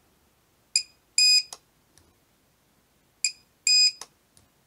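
Supercapacitor spot welder making two welds on a battery strip: each time the welder gives a short high beep, then a longer beep, then the weld fires with a sharp snap.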